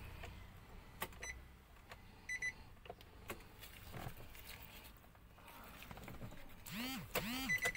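Clicks and short high electronic beeps inside a Nissan Evalia as its ignition is switched on. Near the end come two short pitched sounds that each rise and fall, then a steady high beep.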